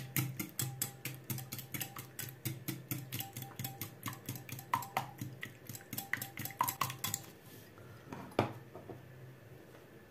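Egg, sour cream and flour batter being beaten in a bowl, the utensil clicking against the bowl several times a second in an even rhythm. The beating stops about seven seconds in, followed by one louder knock on the bowl.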